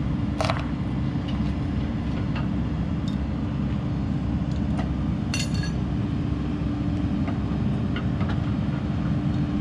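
Excavator engine running steadily with a constant hydraulic hum while it holds the weight of a pickup truck in the air. A couple of sharp metallic clinks, about half a second in and again around five seconds in.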